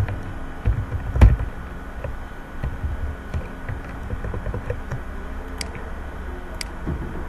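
Computer keyboard taps and mouse clicks over a steady low hum, with a dull knock about a second in and two sharp clicks near the end.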